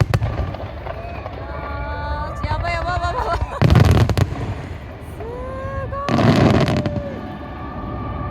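Aerial fireworks shells bursting overhead: two big booming reports about two and a half seconds apart, the first about three and a half seconds in, each with a low rolling rumble.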